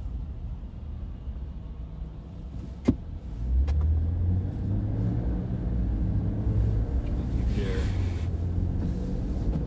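Car's engine and road rumble heard from inside the cabin while driving, getting louder about three and a half seconds in. A single sharp click comes just before that, and a brief hiss about eight seconds in.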